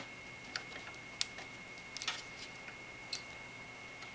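A few light, irregular clicks and taps as an assembled mini-ITX motherboard is set down into a computer case and nudged onto its standoffs against the rear I/O shield, over a faint steady high tone.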